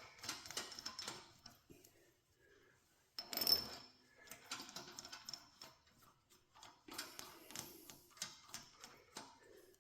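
Light metallic clicks and clinks of hydraulic pump parts and bolts being handled during reassembly, with one brief louder clink and scrape about three seconds in.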